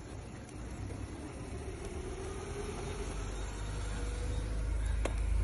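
A motor vehicle's low rumble, growing steadily louder, with a faint hum; a single sharp click near the end.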